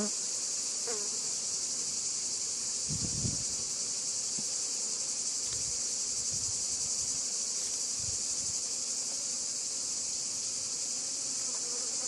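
Steady high-pitched insect drone, with honeybees buzzing around an open hive full of comb frames. A few low thumps come about three seconds in and again near eight seconds.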